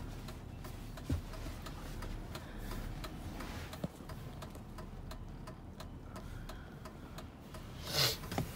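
Handling noise as a handheld phone is carried through a car cabin, rubbing and bumping against the upholstery, with a few light clicks and a louder knock near the end over a low steady hum.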